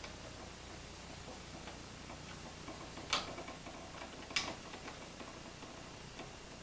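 Faint ticks and clicks of small hand work on a wall switch's wiring: a screwdriver and stiff wire against the switch's terminals. Two sharper clicks come a little over a second apart near the middle.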